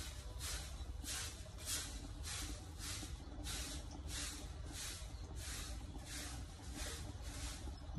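Stiff stick broom (a bundle of palm-frond ribs, a broomstick) sweeping artificial grass in short, even strokes, about two swishes a second.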